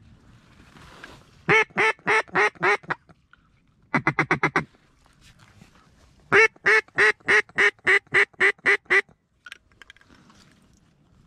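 Duck call blown in loud, hen-mallard-style quacks to call in ducks flying over: a run of about five quacks, then a quicker run of about six, then a longer run of about eleven.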